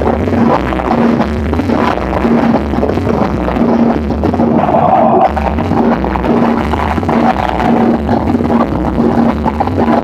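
Cumbia music played loud through a large sonidero sound system's speaker stacks, with a repeating bass line and a steady, evenly pulsing beat.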